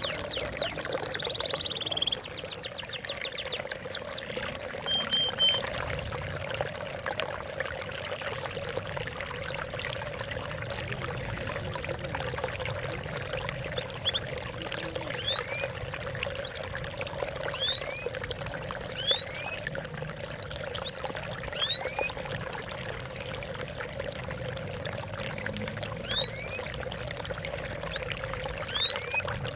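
Steady trickling, splashing water with birds calling over it: a fast, high trill in the first few seconds, then short rising chirps repeated every second or so.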